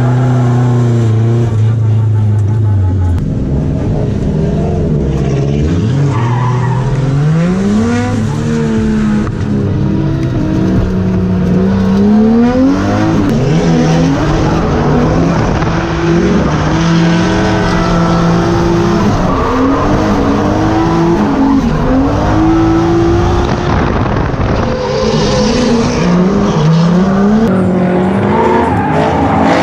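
Drift car engines revving hard and falling off again and again through tandem drift runs, the pitch climbing and dropping over and over, with tires skidding and squealing.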